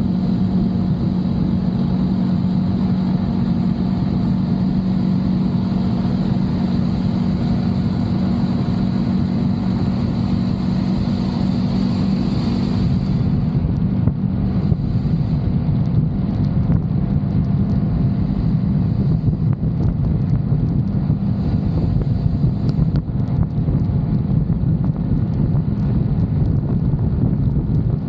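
A moving vehicle's engine running steadily, with road and wind noise, heard on board during a ride. The high hiss thins out about halfway through.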